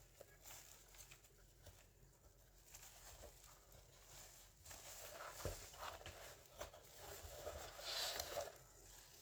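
Faint handling sounds of a keyboard unboxing: scattered light clicks and knocks, then a louder rustle of packaging about eight seconds in.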